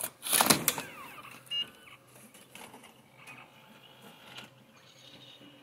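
Fuji Carbon X computed-radiography reader taking in an X-ray imaging-plate cassette: a clatter as the cassette is pushed into the slot, a short beep about a second and a half in, then the quieter whir of the feed mechanism drawing the cassette in to read the image.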